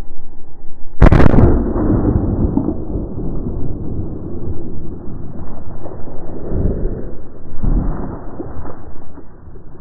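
A single shot from a Glock 20 pistol firing 10mm Auto 175-grain Winchester Silvertip hollow points, a sharp crack about a second in, followed by several seconds of loud, rough rumbling noise.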